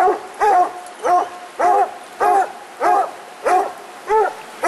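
A coonhound barking steadily at the base of a tree, a loud bark about every two-thirds of a second, each rising and falling in pitch. This is its tree bark, the sign that it has a raccoon treed.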